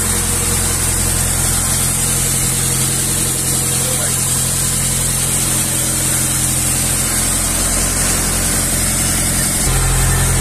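Small fishing boat's engine running steadily under way, a constant low drone with an even hiss of water and air over it; it grows louder near the end.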